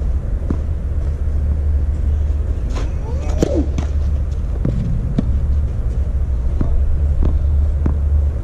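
Tennis ball bounced on a clay court before a serve, then a racket striking the ball on the serve about three seconds in, followed by further ball bounces as the next serve is prepared. A steady low rumble lies under it all.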